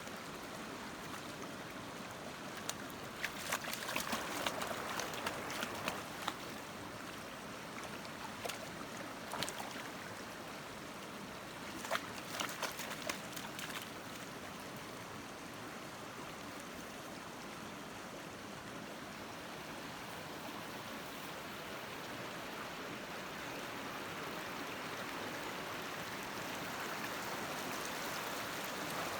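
Creek water running steadily over rocks. Scattered short, sharp sounds come in the first half, and the rushing grows slightly louder near the end.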